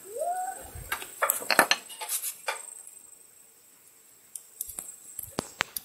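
Sharp clinks and taps of cooking utensils being handled, in two clusters: a busy run in the first half and a few single clicks near the end. A short rising voice sound comes just before them.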